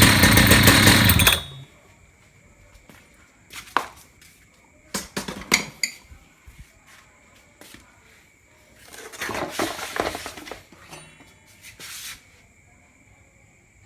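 Husqvarna petrol concrete cutter's engine running loudly, then stopping abruptly about a second and a half in. Afterwards a few scattered clicks and knocks.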